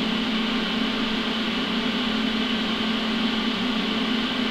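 Cooling fan of the AHP Alphatig 200X inverter welder running: a steady whir with a low hum.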